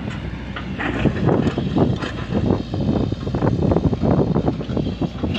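Excavator engine running under load, with irregular clanks and rattles of metal throughout.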